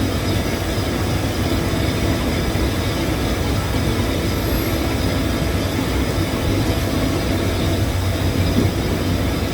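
Submerged-arc welding equipment running on a drum shell seam: a steady hum over an even mechanical rumble, unchanging throughout.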